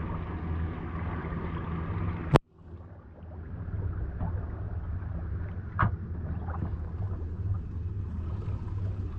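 Boat engine running steadily at low pitch under wind and water noise. About two seconds in a sharp click comes, the sound briefly drops out and comes back, and a lighter knock follows a few seconds later.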